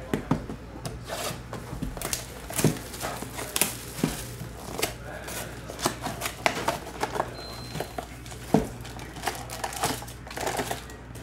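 Plastic shrink wrap crinkling and tearing off a trading-card box, then the cardboard box being opened and its foil card packs handled: a run of irregular crackles, rustles and taps.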